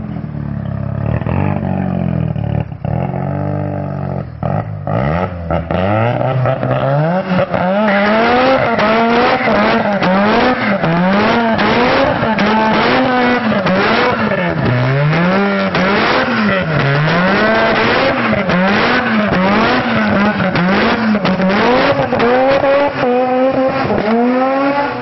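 1993 Mazda RX-7 drag car doing a burnout, loud: the engine revs climb over the first several seconds, then rise and fall over and over, roughly once a second, as the rear tyres spin and squeal on the pavement in a cloud of smoke.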